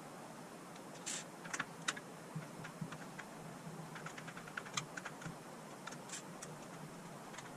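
Light, irregular clicks and taps of a screwdriver and hands working on the plastic housing of a Dyson DC43 vacuum as its screws are taken out.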